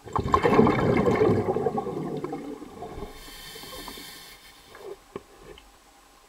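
A sudden gush of water, bubbling and gurgling, that dies away over about two and a half seconds. A brief hiss follows about three seconds in, then a few faint clicks.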